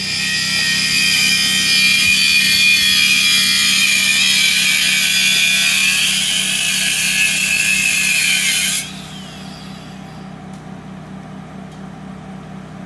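A power tool running with a loud, high whine, cutting off abruptly about nine seconds in. A low steady hum carries on underneath.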